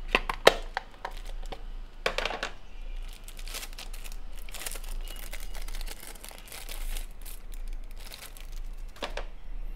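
Clear plastic bag crinkling in irregular bursts as a plastic surface-finish sample card is pulled out of it, with a few sharp clicks at the start from a clear plastic case being handled.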